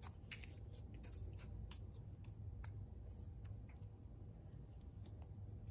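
Faint, scattered small ticks and rustles of paper handling as a glue stick is rubbed on and cut-paper petals are pressed down onto a sheet of paper.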